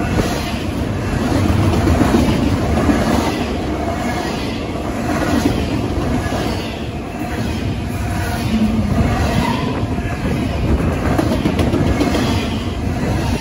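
BNSF double-stack intermodal freight cars passing close at speed: a loud, steady rumble and clatter of steel wheels on rail. It swells about every second and a half as each car's wheels go by.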